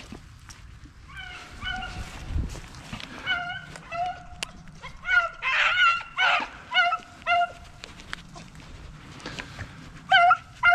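Beagle-type rabbit hounds baying: a string of about a dozen short, repeated calls on the same pitch, some drawn out a little longer, then a pause and two more calls near the end.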